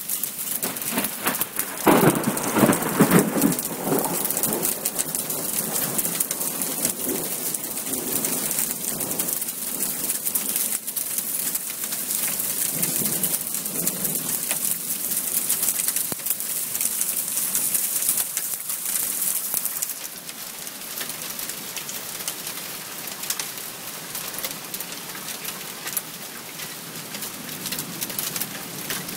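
Thunderstorm: steady rain hissing down, with a loud rumble of thunder about two seconds in and a fainter rumble around the middle. The rain hiss drops off noticeably about two-thirds of the way through.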